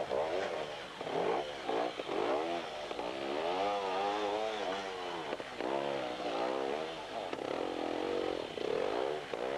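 Sidecar trials outfit's motorcycle engine revving up and down over and over, pitch rising and falling in quick surges as the crew fights through a muddy section.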